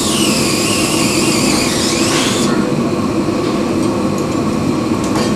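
A power drill runs for about two and a half seconds at the start, its whine dipping in pitch under load and then stopping abruptly. A steady machinery drone continues underneath throughout.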